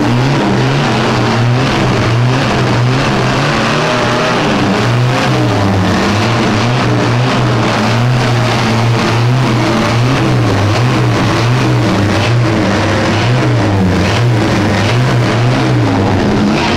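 Chevrolet Opala inline-six engine running loud and steady at low revs, its pitch wavering slightly up and down.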